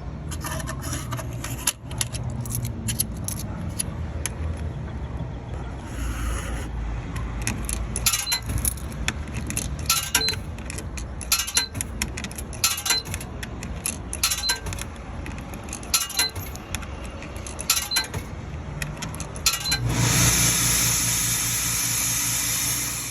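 Tire being inflated: a low hum with sharp metallic clicks about every second and a half, then a loud rush of hissing air near the end.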